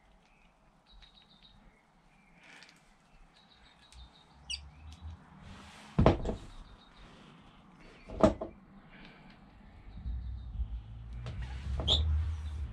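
Hands working a silicone hose and its metal clamp with pliers: rustling and handling noise, two sharp knocks about halfway through and again two seconds later, then a low rubbing rumble near the end. Birds chirp faintly in the background.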